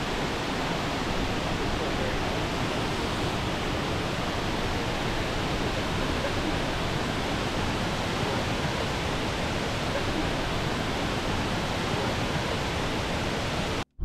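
Sekumpul Waterfall's several tall falls crashing down: a steady, even roar of falling water. It cuts off abruptly just before the end.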